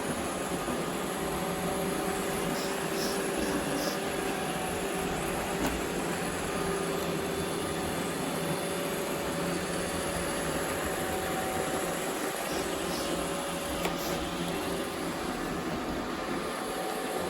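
Robot vacuum cleaner running with a steady whir and a faint wavering motor hum, picking up confetti, with a few small ticks.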